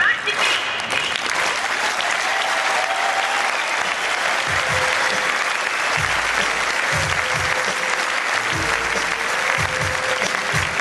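Audience applauding after the music stops abruptly at the start. From about halfway through, low bass thumps of music come in under the applause.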